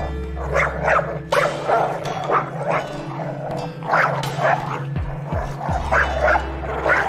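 A pack of African wild dogs calling during an attack on prey: many short, high yelping calls in quick succession, over a steady low drone.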